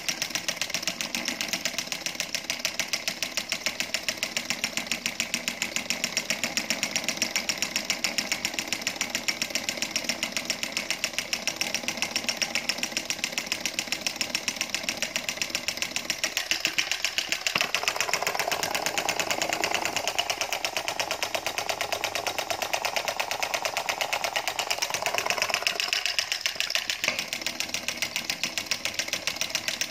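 Homemade solenoid engine running: the coil pulls a syringe plunger back and forth to turn an aluminium pulley flywheel, giving a rapid, even clatter. Its tone shifts a couple of times, around the middle and again near the end.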